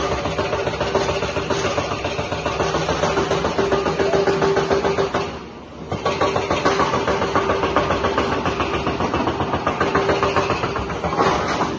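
Tata Hitachi crawler excavator's diesel engine running under load as the bucket digs and lifts soil, with a steady whine running through it. The sound drops away briefly about halfway through, then picks up again.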